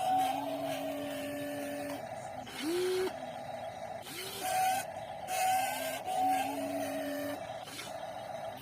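Whine and gear noise of the motors on a WLtoys 16800 RC metal excavator as its movements are worked in short runs. The whine starts and stops several times, sliding up in pitch near the three-second mark, over a steady whirring.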